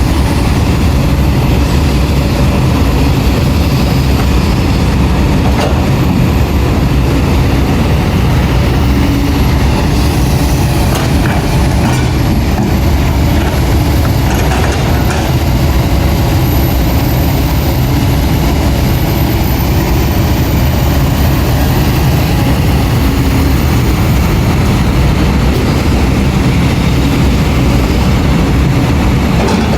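Heavy diesel construction machinery, an excavator loading a dump truck, running steadily with a deep, low engine sound, and a few light knocks partway through.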